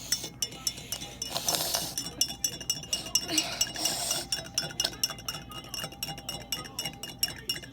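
A spoon stirring fast in a cup of water to spin up a whirlpool, clinking rapidly and repeatedly against the sides with a ringing note, with a couple of short swishes of water.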